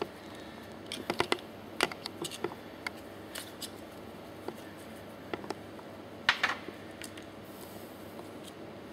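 Scattered light clicks and short scrapes of a small hand tool on metal pump parts as the old leather plunger cups are worked off the plunger ends of a piston pump, with a sharper scrape about six seconds in.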